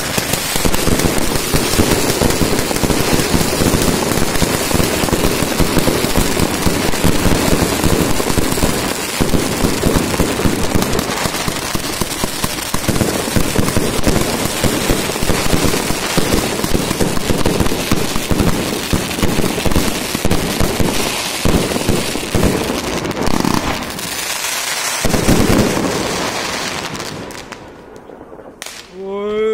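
Ground firework fountains throwing up sparks with a dense, rapid crackling that goes on without a break, thinning out and dying away near the end.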